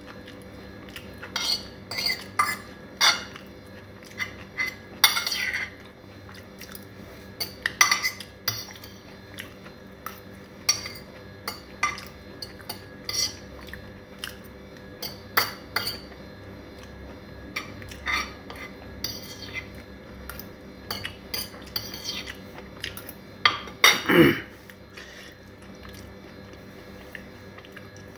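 Metal fork scraping and clinking against a ceramic plate, in irregular short strokes, as the last scraps of noodles are picked up. A louder clatter comes near the end.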